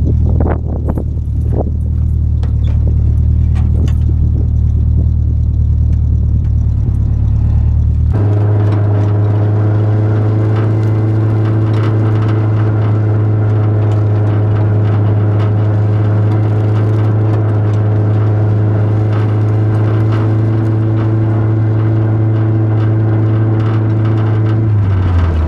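Engine running loudly and steadily, with some clicks and rattles over the first few seconds; about eight seconds in, the sound switches abruptly to a smoother, even hum that holds at a constant speed.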